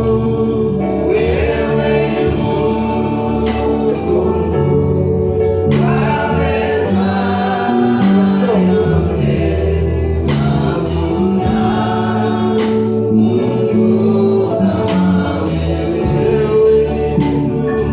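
Gospel music with singing, a choir or group of voices over a steady band accompaniment.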